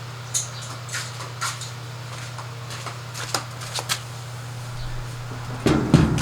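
Light clicks and taps of tools and parts being handled during work on a washing machine's drain pump, over a steady low hum, with a louder clunk near the end.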